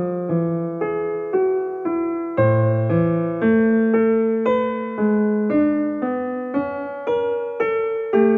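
Background music on a keyboard: a slow, gentle tune of struck notes, about two a second, each fading away.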